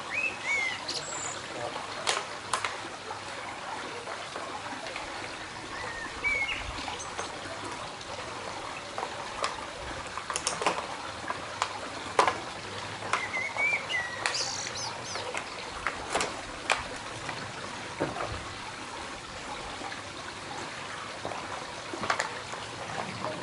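Outdoor ambience: small birds chirp now and then over a steady hiss, with a few sharp clicks scattered through.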